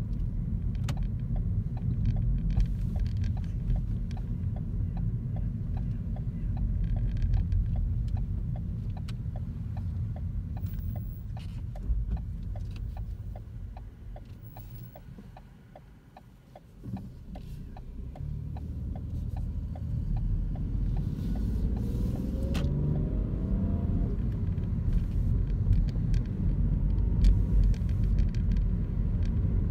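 Car cabin sound while driving: steady engine and road rumble, with the turn indicator ticking evenly, about three ticks a second, through the first half as the car turns a corner. Midway the noise drops as the car slows, then the engine's pitch rises as it pulls away again.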